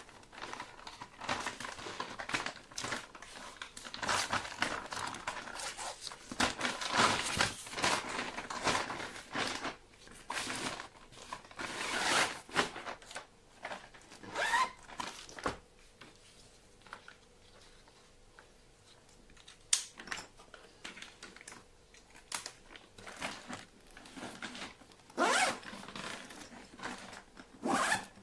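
Zippers on a PK-34V insulated food delivery backpack being pulled in quick strokes, mixed with fabric rustling as the bag is handled. The strokes come thick and fast at first, thin out past the middle, and two more loud ones come near the end.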